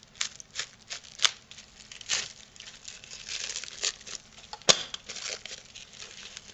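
Cling-film plastic wrap crinkling and tearing as it is slit with a utility knife and pulled off a stack of IC socket adapters, with scattered crackles and a couple of sharp clicks, the loudest almost five seconds in.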